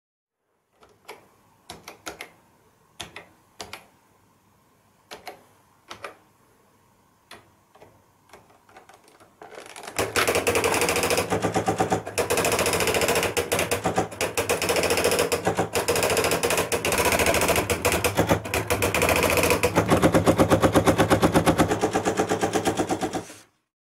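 Electronic typewriter: single key presses clicking about a second apart, then from about ten seconds in a fast, continuous clattering rattle as the machine prints several lines of text by itself, cutting off abruptly near the end.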